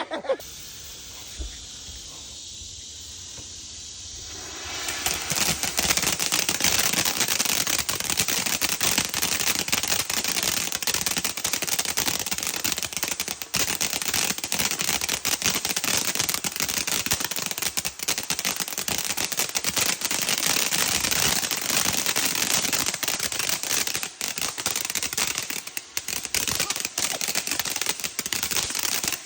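Fireworks: a steady hiss for about five seconds, then a long run of rapid, dense firecracker crackling and popping.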